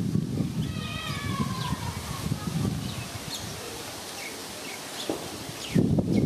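Birds chirping in short, falling notes, with one longer call about a second in, over wind rustling the leaves and buffeting the microphone in gusts, strongest near the end.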